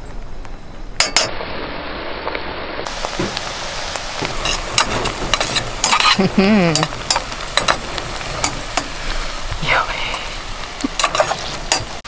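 Butter sizzling as it browns in a stainless steel saucepan on a camp stove, stirred with a slotted spatula that clicks and scrapes against the pan again and again.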